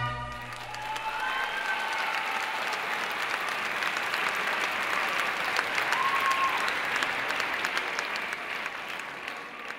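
Audience applauding, with a few scattered cheers, the applause dying down near the end.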